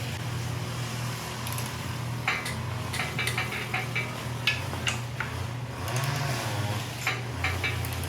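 Torque wrench ratcheting and clicking in short runs as the oil pan bolts on a 5.3 L LS V8 are tightened to spec, over a steady low hum.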